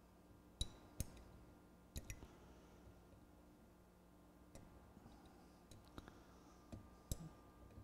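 Small metal picks clicking against a Betamax VCR's reel-table spindle while a tightly fitted retaining piece is pried off it: sparse sharp ticks, about seven in all, the two loudest near the first second, over a faint steady hum.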